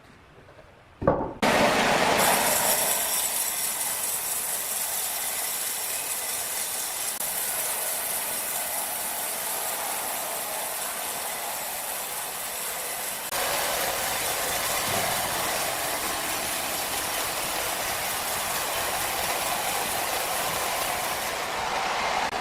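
Sawmill machinery running: a steady, loud mechanical noise that starts suddenly about a second in and shifts abruptly about two-thirds of the way through.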